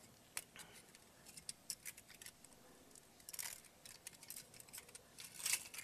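Faint, scattered light clicks and scrapes of a thin metal exhaust manifold gasket being handled and fitted against an engine's cylinder head, with slightly louder scrapes about three and a half and five and a half seconds in.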